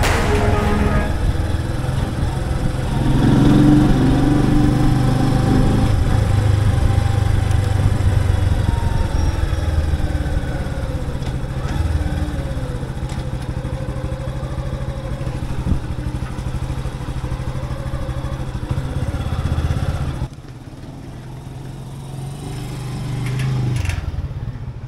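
Motorcycle engine running steadily, revving up briefly about three seconds in; it drops much quieter about twenty seconds in, then swells again near the end.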